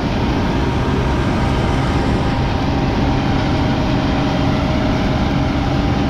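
Heavy farm machinery running steadily under harvest: a continuous engine drone with a steady hum.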